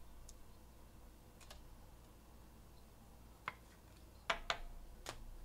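A few faint, sharp clicks and taps, scattered and irregular, from trading cards being handled on a tabletop. The loudest come as a quick pair about four and a half seconds in.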